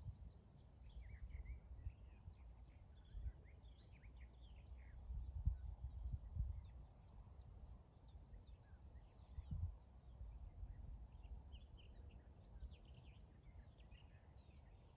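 Faint birdsong, many short scattered chirps, over a low gusty rumble of wind on the microphone that swells twice in the middle.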